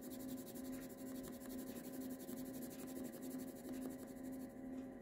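Coloured pencil shading lightly on white card stock: a faint scratching of quick, light strokes.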